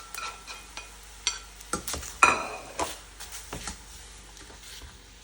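Metal utensils clinking and scraping against a pan and plates as the pasta in tomato sauce is stirred and served. There is a string of light ringing clinks, the loudest about two seconds in, and they thin out near the end.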